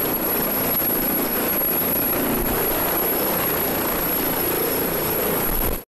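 Leonardo helicopter hovering low: steady rotor and turbine noise with a thin high whine on top, cutting off suddenly near the end.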